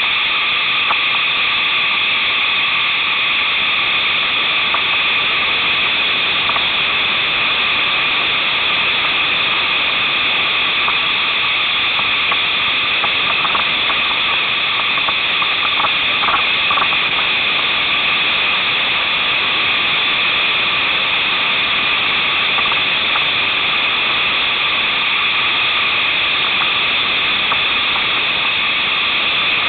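Steady loud rushing of whitewater rapids around a kayak, an unbroken hiss of churning creek water.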